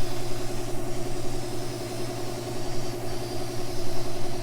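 Air compressor for a paint spray gun running with a steady drone, with a faint hiss of spray from about the middle on.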